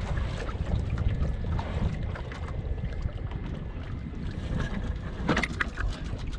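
Water splashing and slapping against a small sailboat's hull under way, over a steady low wind rumble on the microphone, with a burst of louder splashes about five seconds in.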